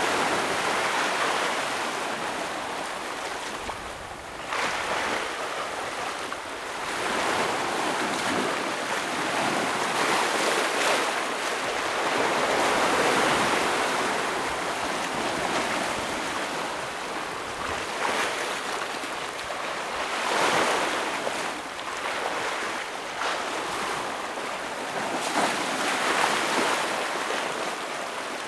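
Ocean waves breaking and washing over shoreline rocks, a continuous surf noise that swells and ebbs every few seconds, with a sharper surge about four and a half seconds in.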